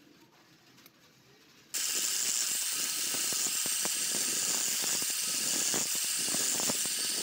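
Electric angle grinder running with its disc pressed against a wooden knife handle, grinding the wood to shape. It starts suddenly about two seconds in and then holds a loud, steady, hissing grind with irregular rough ticks from the contact.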